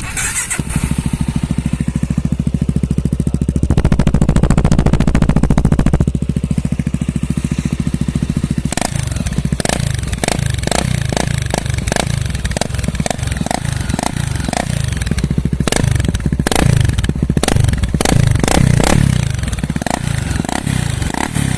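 Honda Twister 250 single-cylinder four-stroke motorcycle engine firing up and running through a short 'roncador' exhaust silencer made for a Honda Pop 100. It idles with a deep, even beat, is revved once for about two seconds a few seconds in, and from about nine seconds on is blipped over and over, about twice a second, for around ten seconds.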